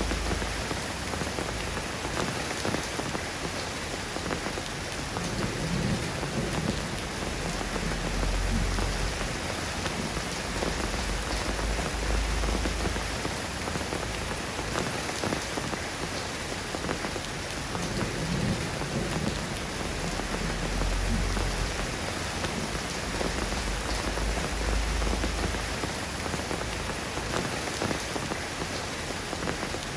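Steady rain falling, an even hiss of many drops, with low rumbles of distant thunder swelling and fading four or so times.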